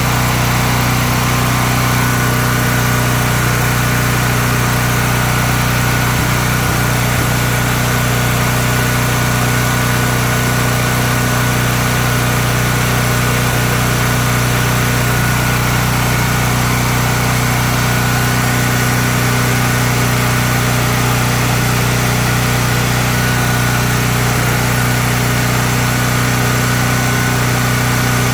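Honda generator engine running at a steady constant speed, with a thin high whine over its hum.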